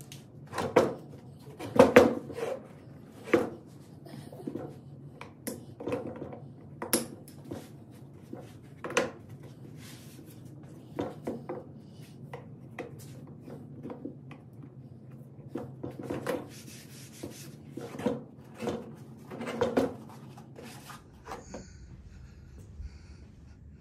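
Irregular knocks, taps and clatter of hard objects being handled, about one every second, over a steady low hum.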